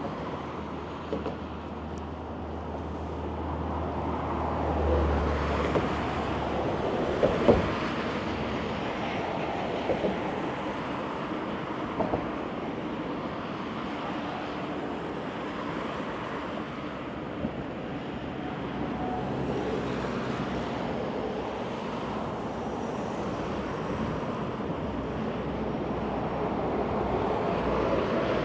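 Steady city street and traffic noise, with a vehicle's low rumble swelling and fading over the first several seconds and a few sharp knocks in the middle.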